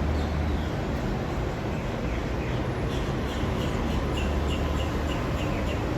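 Steady low rumble of vehicle noise, with a run of short, evenly spaced high chirps or squeaks in the middle.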